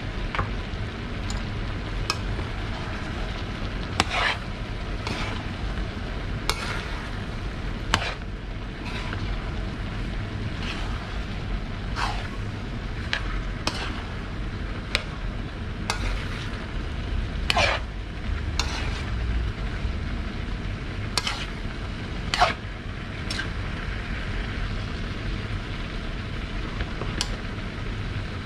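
A spatula stirring and scraping a panful of bopis with diced radish and peppers in a large metal wok, clinking against the pan every second or two over a steady sizzle.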